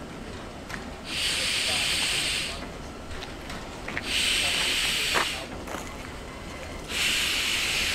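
Victorian Railways J class steam locomotive J549 hissing steam from its cylinder drain cocks as it creeps forward, in three long bursts about three seconds apart.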